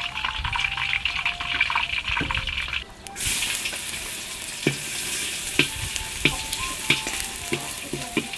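Chicken frying in a pan, sizzling steadily while it is stirred with a utensil. There are short clicks against the pan about every half to one second. The sizzle turns brighter about three seconds in.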